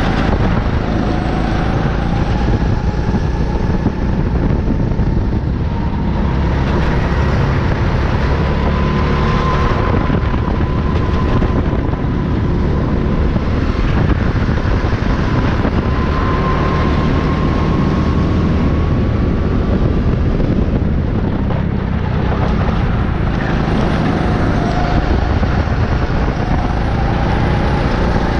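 Rental go-kart engine running hard while lapping. Its pitch slowly climbs along the straights and drops back for the corners, over a constant low rumble.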